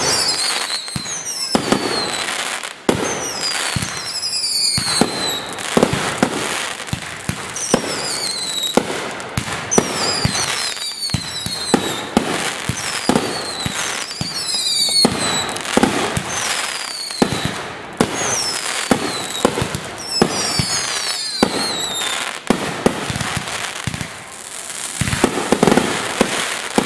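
Fireworks display: a rapid series of booming aerial shell reports, over a continuous crackle, with many whistles falling in pitch.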